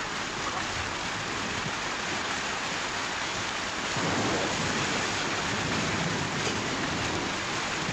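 Steady heavy rainfall, swelling slightly and deeper about halfway through.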